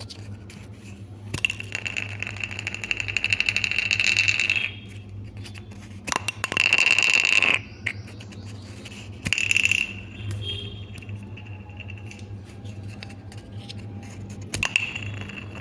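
Plastic bottle cap scratched and clicked by hand, in several bursts of rapid clicking. The longest burst lasts about three seconds and the loudest comes about six seconds in. A steady low hum runs underneath.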